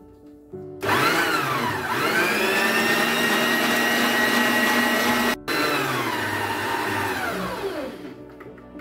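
Electric stand mixer beating eggs, sugar and vanilla with its wire balloon whisk in a steel bowl. The motor starts about a second in, its whine climbs to a steady pitch, cuts out for an instant midway, then slows with a falling pitch and fades near the end.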